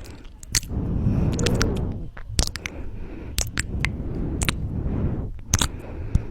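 Close-miked kissing mouth sounds: a string of sharp, wet lip smacks at irregular intervals over a steady low rumbling noise.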